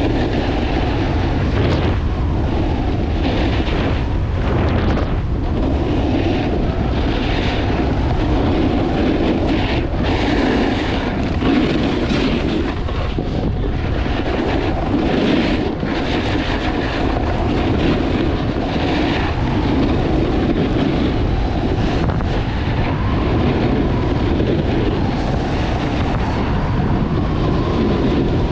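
Wind buffeting an action camera's microphone at speed, with a low rumble, over the scraping hiss of edges carving on packed, groomed snow that swells every second or two with the turns.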